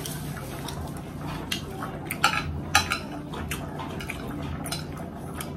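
A metal fork clinking and scraping against a ceramic plate, with a string of sharp taps from about a second and a half in, over a low steady hum.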